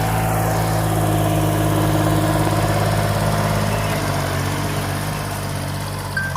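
Small tractor engine running steadily, growing somewhat quieter over the last couple of seconds.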